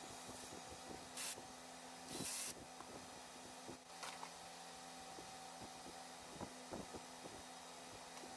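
Two short hissing sprays, the second one longer, over a faint steady hum, with scattered small clicks and taps.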